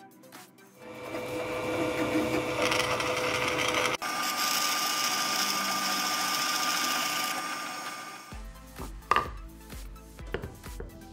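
Bench drill press running and boring a hole through a wooden cutting board: a steady motor whine over the rasp of the bit in the wood. It breaks off abruptly about four seconds in, resumes at once, and stops about eight seconds in, leaving background music and a few light handling clicks.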